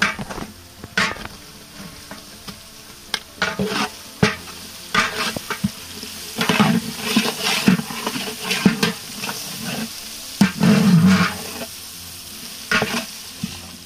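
Onions and crushed garlic sizzling in hot mustard oil while a spatula stirs the pan with repeated clicks and scrapes. There are louder stretches of stirring about halfway through and again near the end.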